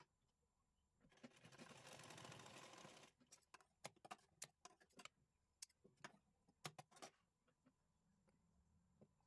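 Sewing machine running for about two seconds, stitching with a fast, even rattle, then a run of sharp snips from large tailor's scissors trimming the fabric.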